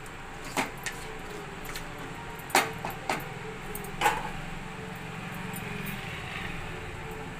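Boiled mutton head pieces frying in a pan, with a spatula knocking against the pan about four times over a steady low hum.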